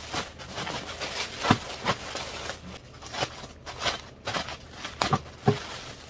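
Clear plastic polybag crinkling and rustling as a t-shirt is pulled out of it by hand, with irregular sharp crackles.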